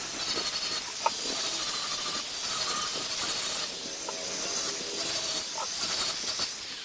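A tool working wood with a steady, abrasive hiss, broken by a few small clicks.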